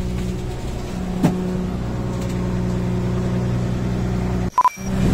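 Fishing trawler's engine running steadily with a low hum, heard inside the wheelhouse. A short beep comes about four and a half seconds in.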